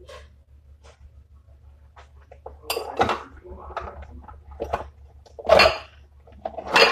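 Kitchen clatter: dishes and utensils handled in a run of separate knocks and clinks, the loudest about five and a half seconds in, over a steady low hum.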